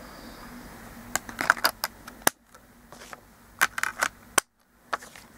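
Plastic clicks and taps as Blu-ray discs are handled and pressed onto the hubs of a steelbook case's plastic disc tray, in two short clusters of clicks.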